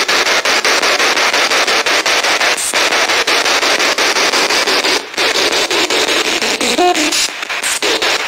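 Spirit box scanning radio bands, played loud through a JBL Bluetooth speaker. It gives a hiss of static chopped by rapid, regular clicks as it jumps between stations. A brief snatch of broadcast tone comes through near the end.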